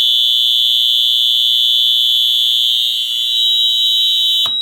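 Fire alarm horn sounding a steady, continuous tone, really loud. About four and a half seconds in it cuts off with a click, leaving a thin single tone.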